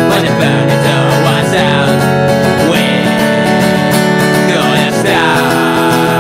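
Acoustic punk song played on a strummed acoustic guitar, with fast, even strokes.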